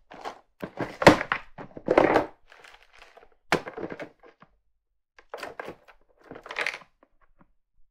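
Leather watch straps being rummaged through in plastic storage drawers: irregular clacks and rustles of straps and their paper tags, with a few louder plastic thunks as a drawer is shut and another pulled open in the first few seconds.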